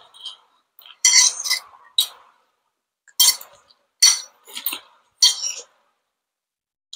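A metal fork clinking and scraping on a plate, with close mouth sounds of eating noodles, in about five short bursts.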